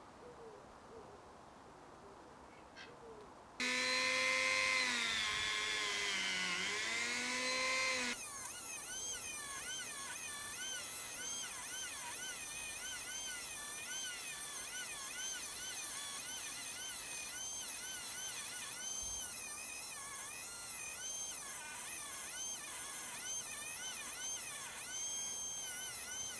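Rotary tool fitted with a wire wheel brush, cleaning up a steel tie rod end shim. After about three and a half seconds of quiet it starts with a lower-pitched whine that dips and recovers. From about eight seconds on it runs as a higher, steady whine with a slight waver.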